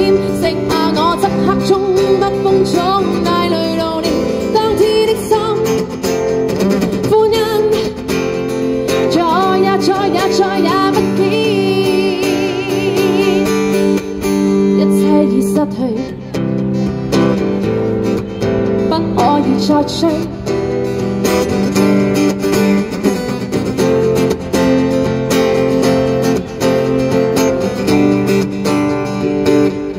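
A woman singing a pop song over steadily strummed guitar chords.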